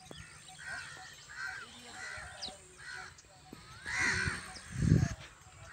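Birds calling outdoors: a steady series of short, arched calls, about two a second, with one louder call about four seconds in. A brief low thump near the end is the loudest moment.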